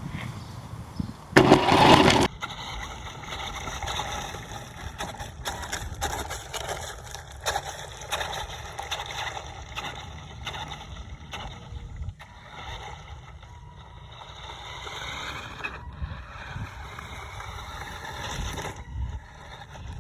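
New Bright Polaris toy RC car driving: its electric motor whines steadily, the pitch rising and falling as it changes speed, over a scraping sound of the wheels on the ground. A short, loud burst of noise comes about a second and a half in.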